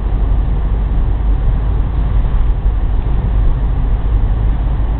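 Steady road noise of a moving car heard from inside the cabin: an even, deep drone of tyres and engine at road speed.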